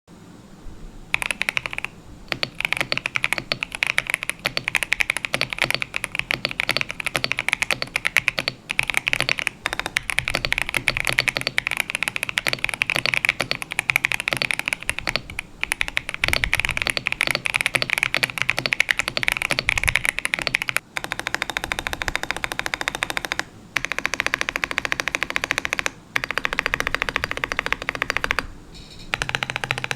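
Epomaker Shadow X mechanical keyboard with Epomaker Budgerigar switches being typed on fast, a continuous clatter of keystrokes that starts about a second in, broken by a few short pauses in the second half.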